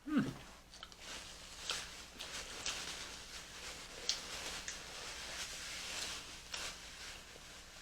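Close-up eating and food handling: small wet clicks, squishes and rustling as seafood boil is pulled apart and eaten. There is a brief low murmur right at the start.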